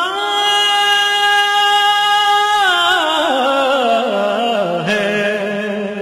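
A single voice singing a long held note in an Urdu devotional song (hamd), steady for about two and a half seconds, then winding down through wavering ornamental turns to a lower held note.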